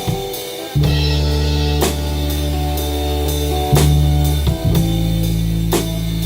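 A band playing: a drum kit with regular cymbal and drum hits, a bass holding low notes that change every second or two, and guitar.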